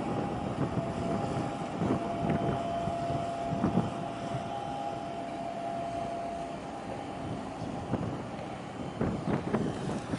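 Wind buffeting the microphone over the steady drone of a boat's engine and the wash of water. A thin steady whine runs through the first six seconds or so, and a few gusty thumps come near the end.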